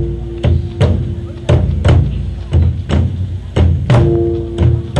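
Korean drums (buk) beaten in a driving, galloping rhythm of heavy strikes about two to three a second, meant to evoke horses' hoofbeats. A held low tone sounds over the drumming near the start and again about four seconds in.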